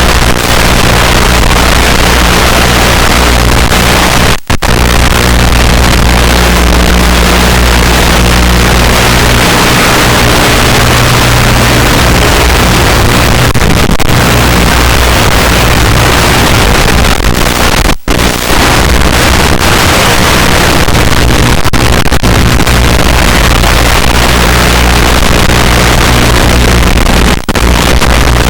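Electric motor and propeller of a small aerobatic model plane in flight, heard from on board under a loud rush of air; the motor's hum shifts with the throttle about ten seconds in. The sound cuts out suddenly and briefly three times.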